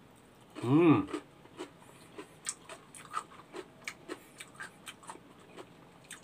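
A man chewing a mouthful of kimchi (fermented napa cabbage) close to the microphone, with short wet smacking clicks every third to half second. A brief voiced 'mm'-like sound comes about a second in.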